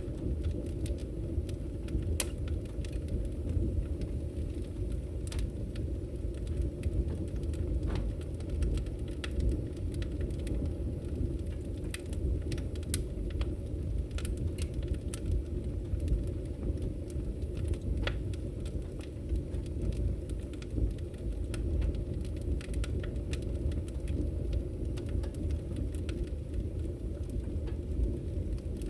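Campfire burning: a steady low rumble of flames with scattered sharp crackles and pops from the burning wood.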